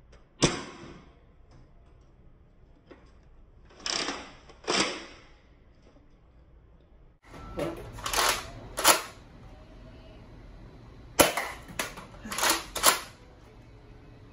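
Nerf Rival foam-ball blasters being fired: a sharp pop about half a second in and another about eleven seconds in, with shorter clacks from the blasters between the shots.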